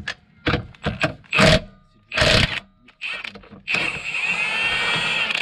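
Impact wrench undoing a subframe bolt: a few short bursts, then a longer run of nearly two seconds near the end, its pitch rising and falling.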